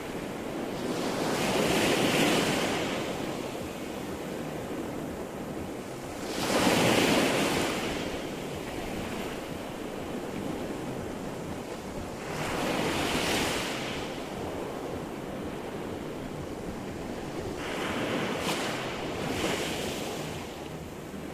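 Sea surf: waves rolling in and breaking, four surges about five to six seconds apart over a steady wash of water.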